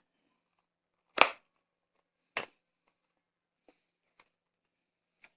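Plastic product packet being torn open by hand: a sharp crackle about a second in, a second one just over a second later, then a few faint clicks.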